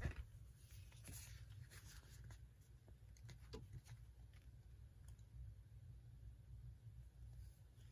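Faint handling of a paper magazine: a sharp tap right at the start, then soft paper rustling and a few small clicks as it is turned over, over a low steady hum.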